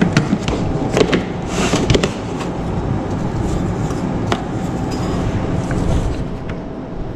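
Handling noises as a plastic ingredient bin under a steel worktable is opened and a metal scoop dug into sugar: a few sharp clicks and knocks and a short rushing scrape in the first two seconds, another click a little past four seconds, over a steady background hum.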